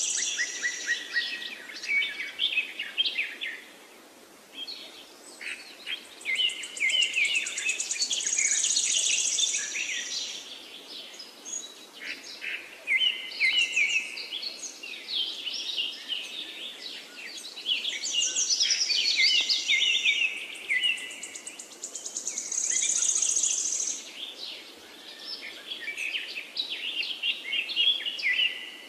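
A songbird singing, with phrases of rapid chirps, trills and high whistles that recur every few seconds.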